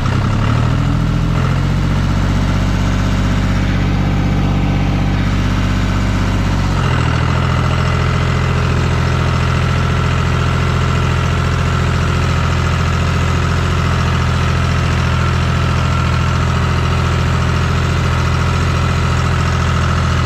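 Diesel tractor engine running at a steady speed. Its note rises slightly in the first couple of seconds and shifts briefly about seven seconds in, then holds steady.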